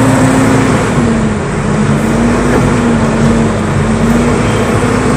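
A vehicle's engine running with a steady, slightly wavering low drone as it drives through a flooded street, under a constant hiss of heavy rain and water, heard from inside the vehicle.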